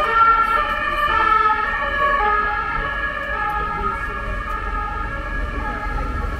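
An emergency vehicle siren sounding steadily over the low rumble of road traffic, its tones shifting a little in pitch.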